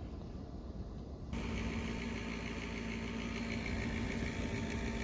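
Gas furnace running: a steady motor hum with a few constant tones that begins abruptly about a second in, after faint room noise.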